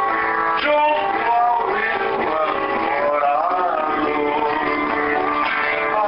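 Acoustic guitar playing a tune, a continuous run of plucked and strummed notes.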